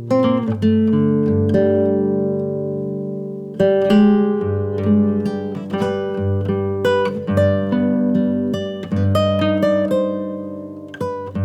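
Background music: plucked acoustic guitar playing a melody over held notes.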